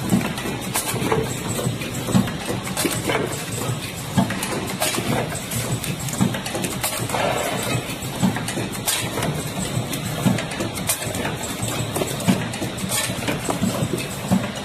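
Automatic heat transfer machine for square marker pen tubes running, with a steady mechanical clatter and a knock about once a second as it cycles through the tubes.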